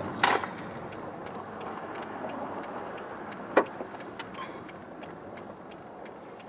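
Car turn-signal indicator ticking steadily, about three ticks a second, over the car's running and road noise in the cabin. A single sharp knock sounds about three and a half seconds in.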